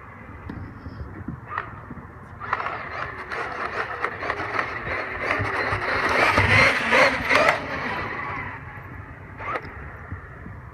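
Traxxas X-Maxx electric RC monster truck driving, its tyres and drivetrain getting louder as it comes closer a few seconds in, then fading away. Rapid clicking runs through the run; this is the clicking from the rear differential, which has damaged gear teeth and is failing.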